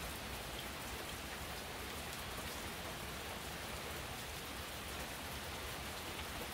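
Steady rain falling: an even patter of drops.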